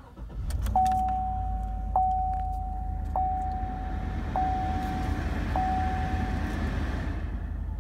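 A 2017 Chevrolet Silverado's engine starts within the first second and settles into a steady idle. A single-tone dashboard warning chime sounds five times, about 1.2 seconds apart, over it.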